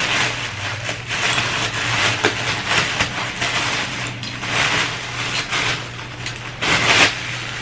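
Clear plastic packaging bag crinkling and rustling in the hands as a metal over-the-door hook rack is pulled out of it, in uneven flurries with a few sharp clicks.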